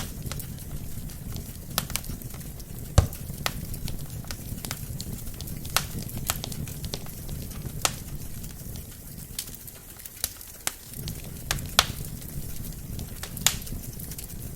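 Wood fire burning in a fireplace: a steady low flame rumble with irregular sharp crackles and pops from the logs, the loudest pop about three seconds in.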